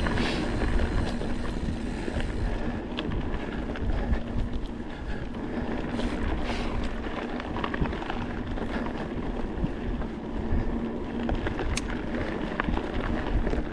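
Wind buffeting the microphone as a mountain bike rolls along a dirt trail, with a steady faint hum and scattered light clicks and rattles from the bike.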